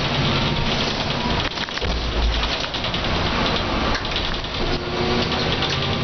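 Mercedes O405N bus heard from inside on the move on a wet road: its six-cylinder diesel engine running under a dense hiss of tyre spray and rain with many small cabin rattles. About a second and a half in the engine note drops away, with a deep low rumble near two seconds, and it comes back near the end.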